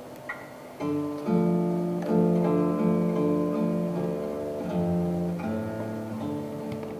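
Music: an acoustic guitar playing plucked notes in a slow melodic line, coming in about a second in.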